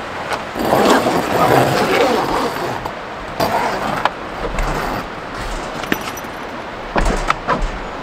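Strong wind gusting against a small A-frame tent, the tent fabric flapping and snapping in uneven swells, with low rumbles where gusts buffet the microphone.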